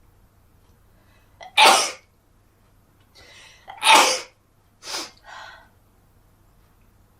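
A person sneezing: two loud sneezes about two seconds apart, the second after a quick breath in, followed a second later by a shorter, quieter burst.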